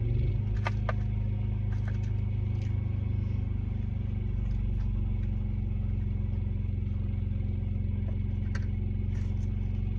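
Truck engine idling steadily, heard from inside the cab, with a few light clicks about a second in and one more near the end.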